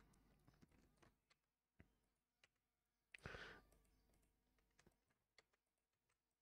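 Near silence with faint, scattered clicks of a computer mouse and keyboard, and a brief soft noise a little after three seconds in.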